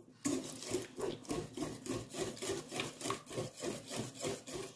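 Wire whisk beating thin crepe batter in a stainless steel bowl: a quick rhythmic scraping and sloshing of about four strokes a second, starting just after the beginning.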